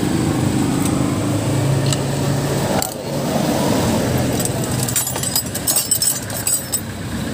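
Metal hand tools clinking and jangling for about two seconds, with a single click shortly before, over a steady low hum.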